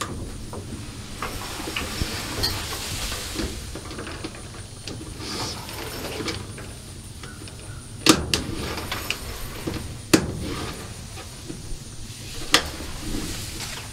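Gazebo curtain panel being clipped onto its overhead slide rail: rustling and sliding at the track, with three sharp snaps about two seconds apart in the second half.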